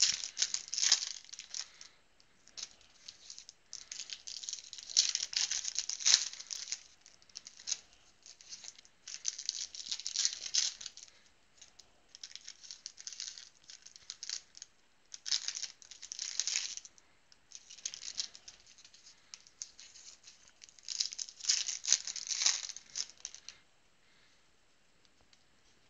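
Trading card packs and their wrappers being handled: repeated short bursts of crinkling and rustling, stopping a couple of seconds before the end.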